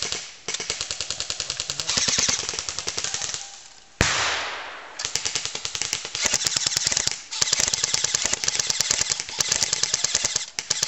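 Airsoft electric guns firing on full auto: rapid, even chatter of shots in long bursts with short pauses between them. About four seconds in, one sharp bang that fades out over about a second.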